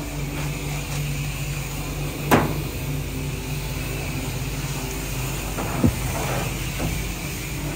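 Steady low machine hum, with a sharp click about two seconds in and a short knock near six seconds.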